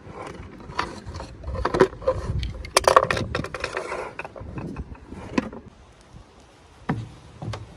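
Plastic toy packaging being handled and opened: a run of clicks and taps, with a burst of scraping and rustling about three seconds in.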